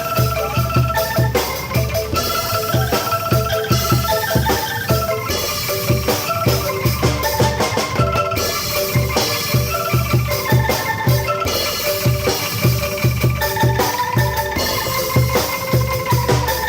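Angklung ensemble playing a tune of ringing pitched notes over a steady drum beat.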